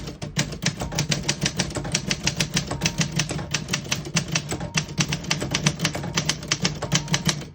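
1977 Olympia SM-8 manual portable typewriter being typed on fast: an even run of key strikes, about seven a second, typebars snapping against the platen. The run stops near the end.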